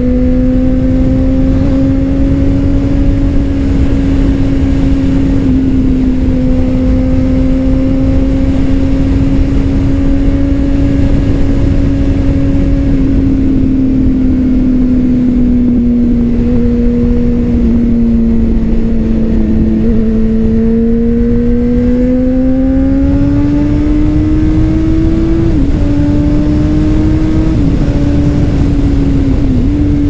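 2009 Honda CBR600RR's inline-four engine with a Leo Vince exhaust, running steadily at cruising revs over a rush of wind noise. The revs sag a little and then climb about two-thirds through, with a couple of brief dips near the end.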